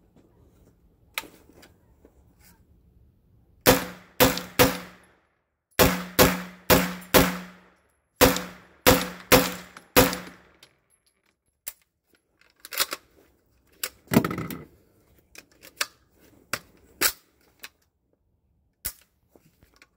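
PTR 9CT 9mm roller-delayed MP5-clone pistol firing about a dozen semi-automatic shots in three quick strings, each shot ringing briefly. After that come scattered metallic clicks and clanks of the gun and magazine being handled during a speedy reload that does not go smoothly.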